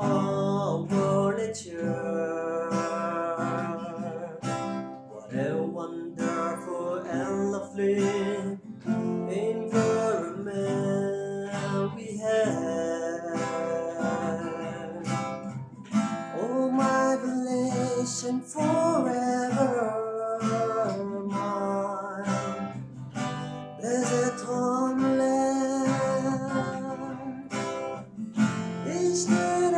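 A man singing to his own strummed acoustic guitar. His voice holds and slides between notes over steady strumming.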